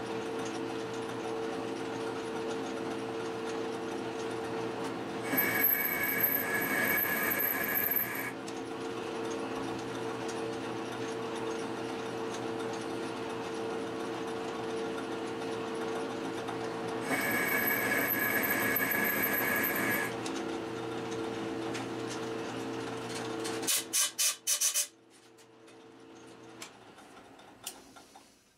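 Metal lathe running with a steady motor and gear hum while an external thread is cut. Twice, for about three seconds each, a louder higher whine joins in. About 24 s in the lathe stops after a quick run of clicks.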